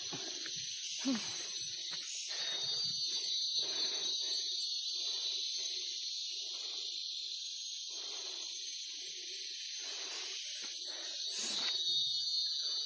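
Steady high-pitched drone of forest insects, with a thinner, higher whine that wavers for a few seconds and then holds steady. Softer low rustles and thuds come and go underneath.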